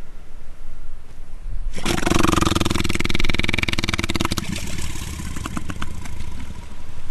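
Southern elephant seal calling: a sudden, throaty, rapidly pulsing rumble that starts about two seconds in, holds strongly for a couple of seconds, then trails off into sparser pulses. Waves wash on the shore underneath.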